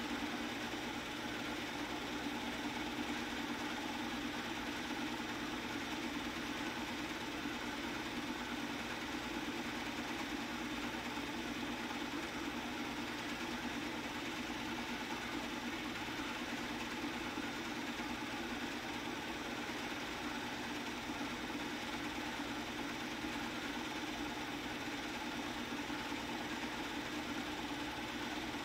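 Film projector running: a steady mechanical whir and hum that does not change.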